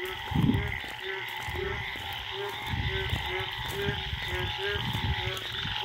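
A chorus of many frogs calling at night after the first monsoon rain: the breeding chorus. Short croaking notes repeat about twice a second over deeper croaks, with a continuous high trilling chorus behind.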